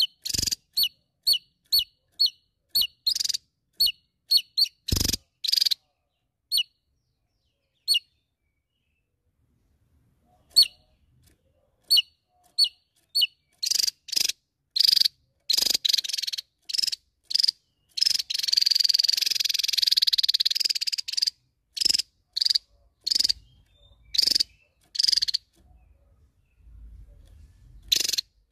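Javan tesia calling to rivals: short, sharp high chirps about two a second, then after a pause louder calls that run into a rapid chattering trill for a few seconds past the middle. A single dull knock sounds about five seconds in.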